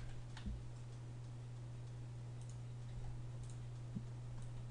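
A few faint computer mouse and keyboard clicks over a low steady hum, the loudest about half a second in and around four seconds in.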